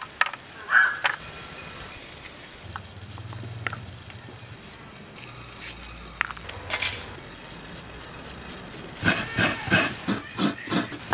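A few sharp clicks of a hand knife cutting garlic and green chilli. Near the end comes a run of quick scraping strokes, about three a second, as fresh coconut is grated on a serrated coconut scraper.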